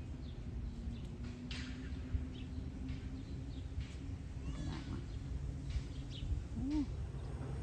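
Several short animal calls, chirps and a brief low mewing note, scattered over a steady low background noise.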